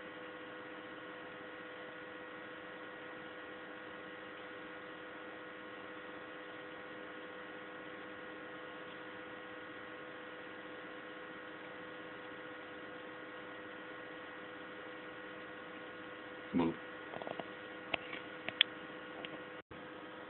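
Steady electrical hum made of several constant tones, with one knock about sixteen seconds in and a few small clicks near the end.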